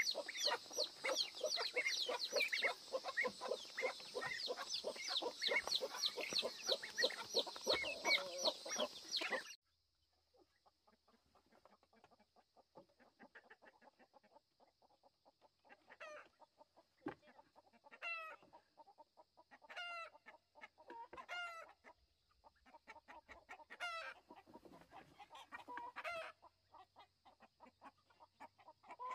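Backyard poultry flock: many chicks and ducklings peeping in rapid high chirps over hens clucking, cut off abruptly about nine seconds in. After that it is quieter, with a faint steady high whine and a chicken calling repeatedly, about once every two seconds.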